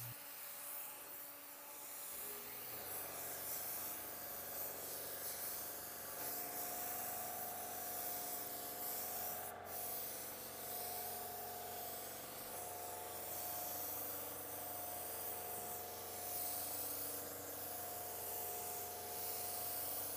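AeroPro A610 low-volume, low-pressure spray gun hissing steadily as it sprays a first coat of clear, its air set to 30 PSI. The hiss swells and eases slightly with each pass.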